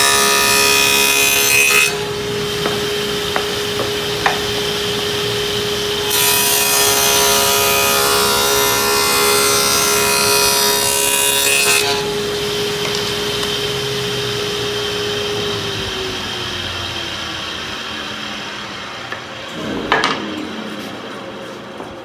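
Table saw with a dado stack cutting dados in plywood pieces. There are two cutting passes, one ending about 2 s in and another from about 6 to 12 s, with the blade running freely between them. The saw is then switched off and its pitch falls as it winds down, with a single knock near the end.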